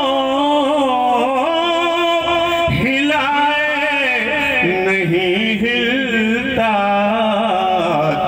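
A man singing an Urdu naat through a microphone, drawing out long held notes with a wavering pitch and no clear words, with a short break about three seconds in.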